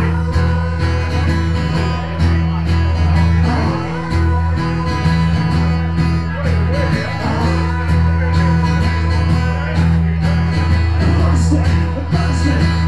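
Live acoustic guitar music, steady strummed chords with a heavy bass, amplified through a PA.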